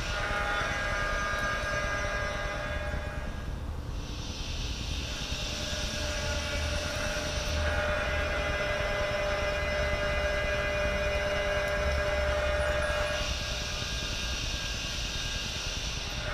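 Leather dry shaving machine running, a steady machine whine with several held tones, as skins are shaved down to thickness. A hissing higher layer cuts in and out three times, for a few seconds each.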